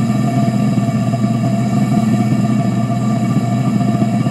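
Propane-air combustion chamber burning steadily with its air blower running: an even, constant roar with a steady hum underneath.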